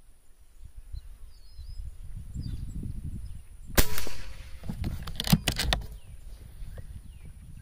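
An air rifle fires once, a sharp crack about four seconds in, followed a second later by a few quick metallic clicks as the action is cycled for the next pellet.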